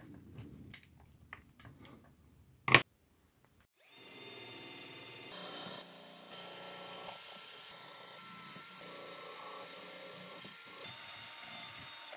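Cordless drill running a wire wheel brush against a rusty steel wiper crank arm, a steady whine that starts about four seconds in and steps up and down in level a few times. Before it come a few light clicks and one sharp, loud click.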